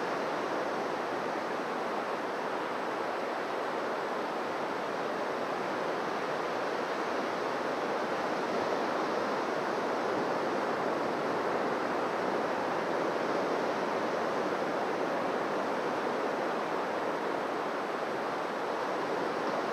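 Waves washing onto a beach: a steady rush of surf that swells and eases gently.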